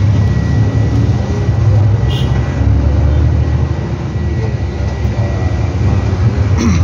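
Nissan Diesel CB87L bus's growling 'ngorok' exhaust and diesel engine, heard from the rear seat inside the cabin while under way: a steady, loud, low rumble.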